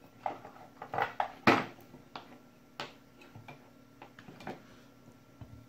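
Test leads and alligator clips being handled on a silicone work mat: scattered clicks and light knocks, the loudest about a second and a half in.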